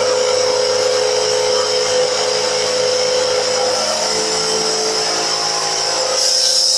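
Upright bagless vacuum cleaner running steadily, a motor whine over the rush of air. About six seconds in, the tone shifts, the high whine getting stronger.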